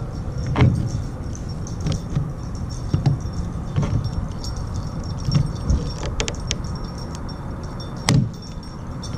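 Long-handled lever rivet tool pumped repeatedly to set a pop rivet through a plastic kayak hull, each squeeze a sharp metallic clack. Near the end a louder crack comes as the mandrel snaps and the rivet is set.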